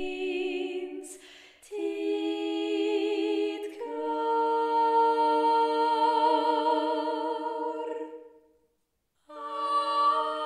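A woman singing wordless, a cappella, in layered vocal harmony, slow and lullaby-like, holding long notes with vibrato. The notes change a few times, and there is a brief gap near the end before the next chord comes in.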